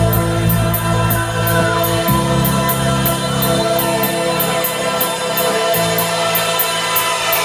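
Loud music from a DJ set over a PA system. Long held bass notes change about two seconds in and again near the end, under a steady, fast, high ticking beat.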